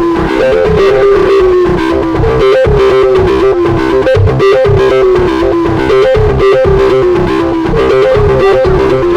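Music: a gliding melody line over a steady beat.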